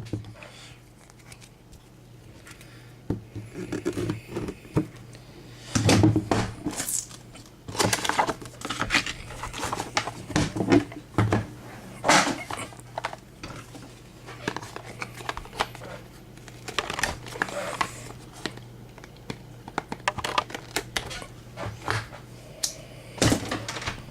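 A sealed trading-card box and its wrapping being torn open and handled: intermittent crinkling, tearing and rustling with scattered sharp clicks.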